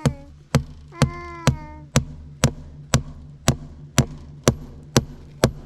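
Hammer pounding a peeled wooden fence post with steady, sharp blows, about two a second.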